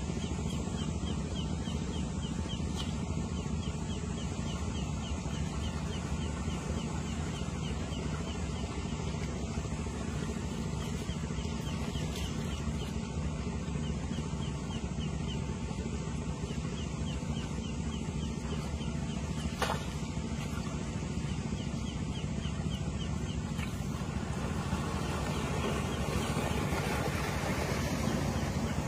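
A steady low drone, like a running motor, with runs of quick, high, repeated chirps at times and a single sharp click about twenty seconds in.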